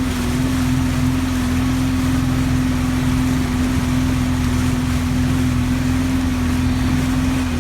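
Motorboat engine running steadily at a constant pitch, with a low rumble beneath.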